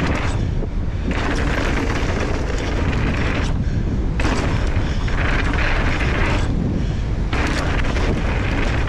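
A mountain bike descending a dirt downhill trail at speed: constant wind rumble on the microphone under stretches of rushing tyre and drivetrain noise. The rushing breaks off for about half a second twice.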